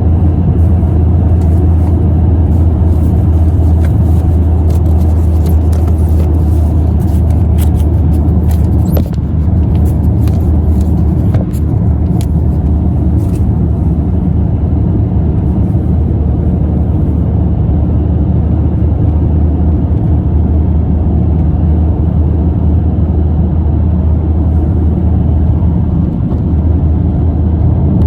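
Car driving at steady motorway speed: a continuous low road and engine drone heard inside the cabin, with a few faint clicks in the first half.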